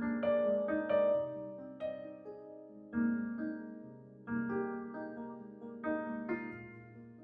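Background piano music: soft chords struck every second or so, each ringing and fading before the next.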